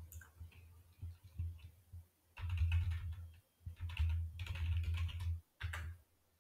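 Typing on a computer keyboard: irregular runs of key clicks, a few scattered keystrokes at first, then busier runs from about two seconds in.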